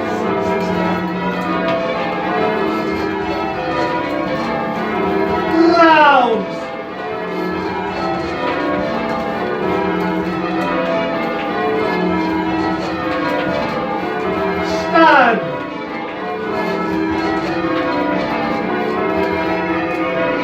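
A ring of ten church bells, tenor 18½ cwt in E, rung full circle in call changes: the bells strike one after another in a steady, unbroken sequence. Twice, about six seconds in and again near fifteen seconds, a loud sound falls steeply in pitch over about a second above the bells.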